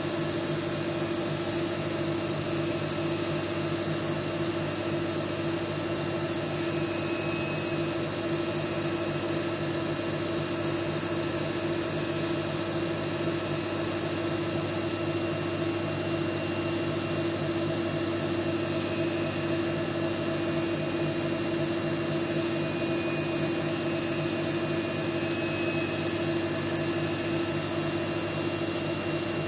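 CNC milling machine's spindle running steadily as an end mill cuts a metal block under coolant spray, with a steady high whine over the cutting and spray noise.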